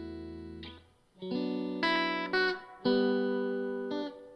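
Music played back through a pair of modified Kenwood LS-SV3 bookshelf speakers with concrete horn tweeters and plaster-damped cabinets. Held chords fade out about a second in, then new notes and chords come in and change several times.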